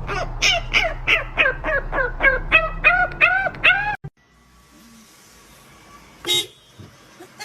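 An animal giving a quick run of short, high calls, about three a second, each rising and falling in pitch, over a low hum; it cuts off about four seconds in, and a single sharp sound follows about two seconds later.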